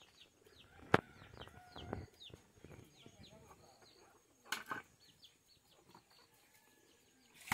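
Birds chirping over and over in short falling notes. A sharp metallic knock comes about a second in, and a ringing clatter of metal dishes about four and a half seconds in.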